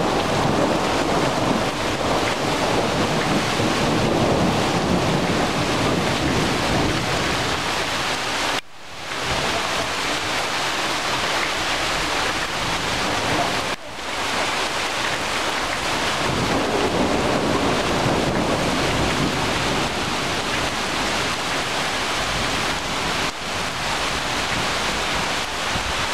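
Heavy rain pouring steadily onto trees, leaves and ground, a dense even hiss. The sound drops out briefly twice, about 9 and 14 seconds in.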